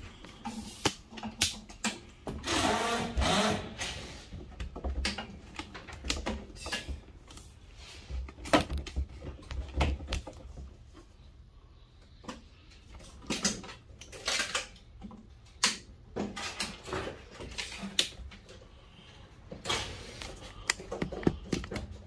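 Wire cutters snipping through the wiring inside a furnace: a string of sharp clicks and snaps at uneven intervals, with wires rustling and scraping as they are pulled out of the cabinet.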